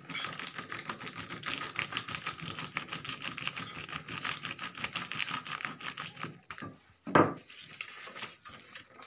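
Wooden rolling pin crushing charred roasted cloves inside folded newspaper: rapid crackling and crunching with paper rustling. There is a single louder thump about seven seconds in.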